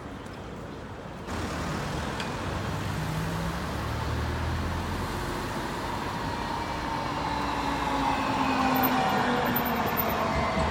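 Tram running on the street: a steady rumble of the car and its wheels on the rails that grows louder, with a faint whine of its drive coming in about two-thirds of the way through.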